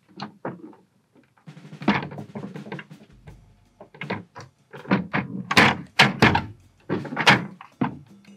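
Hard plastic knocks and clicks as a replacement third brake light with a built-in camera is handled and pressed into place in a truck's rear spoiler, a string of sharp strokes at uneven intervals.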